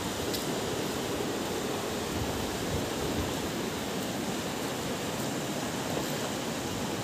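Steady rush of a fast-flowing river running over rocks and small rapids.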